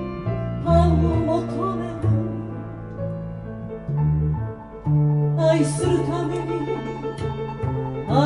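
Live acoustic music: a double bass plays a low line of held notes that step in pitch, under a higher wavering melody.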